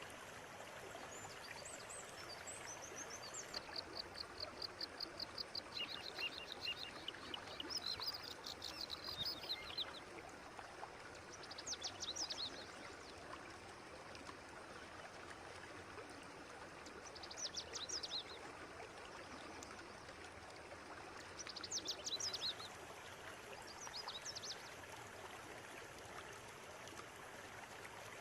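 River water running steadily, with a bird giving rapid high trills: one long trilling run early on, then short bursts every few seconds.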